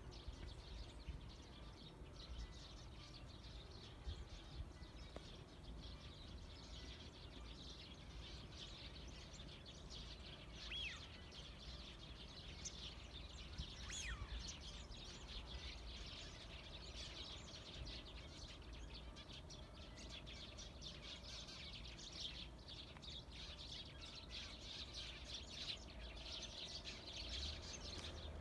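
Small birds chirping faintly, many short high calls scattered throughout and growing busier in the second half, with a couple of brief falling whistles, over a steady low rumble.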